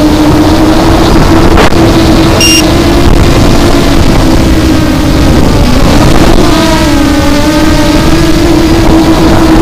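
FPV quadcopter's brushless motors and propellers whining loudly, as picked up by the onboard action camera, the pitch dipping and rising as the throttle changes. A brief high beep sounds about two and a half seconds in.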